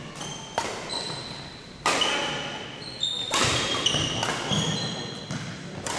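Badminton doubles rally on a hardwood gym floor: several sharp racket hits on the shuttlecock, each followed by a hall echo, with short high squeaks from sneakers.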